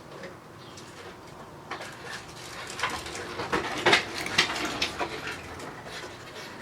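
A quick run of small clicks and taps from handling and pressing small phone parts into place on a smartphone's back glass. The taps are densest and loudest about halfway through.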